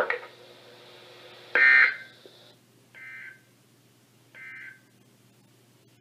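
NOAA Weather Radio SAME digital data bursts: three short electronic screeching bursts about a second apart, the first loud and the next two fainter. Bursts this short mark the end of an alert message.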